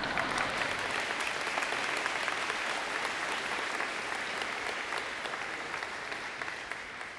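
Audience applauding, many hands clapping at once; the applause is strongest in the first few seconds and slowly dies away near the end.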